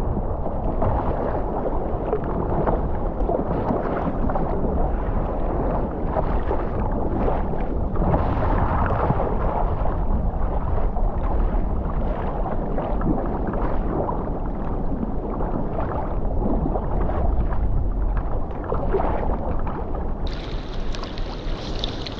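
Sea kayak on choppy sea: a steady, heavy rumble of wind on the microphone mixed with water sloshing against the hull. About two seconds before the end the sound turns brighter, with splashing and trickling water.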